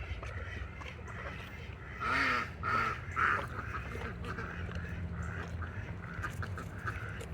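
Farmyard poultry calling: three loud, harsh quack-like calls in quick succession a little over two seconds in, with softer calls scattered through the rest.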